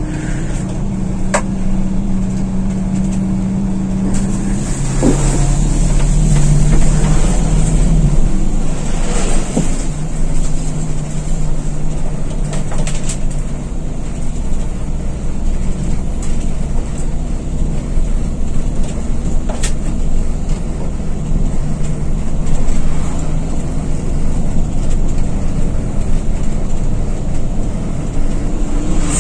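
Intercity coach's diesel engine and road noise droning steadily inside the passenger cabin as the bus drives on. The engine note drops about four seconds in and shifts again a few seconds later.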